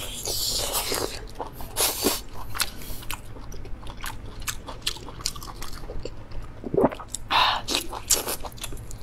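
A person biting into and chewing a large piece of cooked pork intestine close to the microphone: irregular mouth clicks, with a few louder bites and chewing noises about two seconds in and again near the end.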